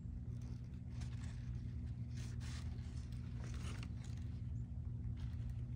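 Crumpled brown packing paper and a cardboard box rustling and crinkling in several short bursts as a bobcat shifts about inside, over a steady low hum.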